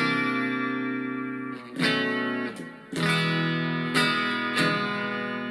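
Fender Stratocaster played on the clean channel of a Blackstar Superfly battery-powered practice amp: chords struck about five times and left to ring out and fade between strikes.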